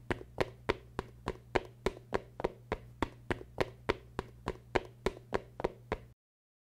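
Footsteps sound effect: an even run of sharp clicks, about three or four a second, over a steady low hum, cutting off suddenly near the end.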